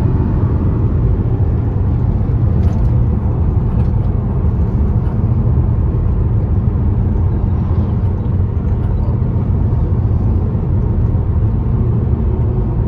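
Steady low rumble of a car driving on the road, heard from inside the cabin: tyre and engine noise.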